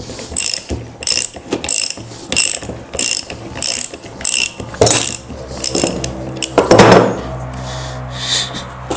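Ratchet wrench clicking in short bursts, about three every two seconds, as it is swung back and forth to loosen the upper nut of a scooter's front shock absorber. A louder knock comes near the end.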